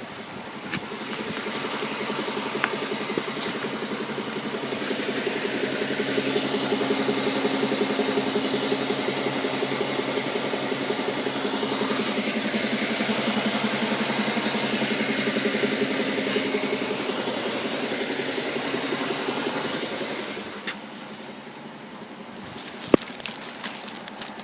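BMW X5 E70 running with the ZF 8HP45 eight-speed automatic transmission making the noise and knocks that the owner blames on the gearbox. A steady mechanical hum with a fast rhythmic rattle runs for about 20 seconds, then drops much quieter, and a single sharp click comes near the end.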